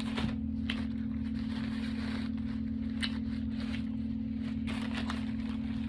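A steady low hum runs throughout, with a few brief crackles and crunches from eating a sandwich and handling its paper wrapper.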